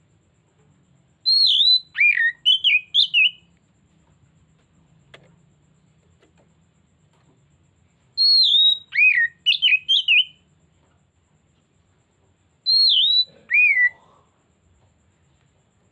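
Oriental magpie-robin singing: three short phrases of clear whistled notes with quick falling slurs, about a second in, near the middle and near the end.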